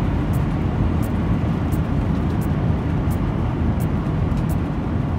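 Cab noise of an RV driving on a highway: a steady low rumble of engine and tyres on the road, with a faint light tick repeating about every two-thirds of a second.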